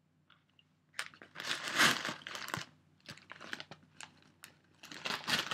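A freshly popped microwave popcorn bag being handled and pulled open: paper crinkling in bursts that start about a second in, loudest around two seconds, and come again near the end.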